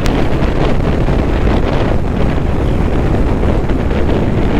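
Heavy wind noise on the microphone of a moving motorcycle, with the Triumph Bonneville T120's 1200 cc parallel-twin engine running steadily underneath.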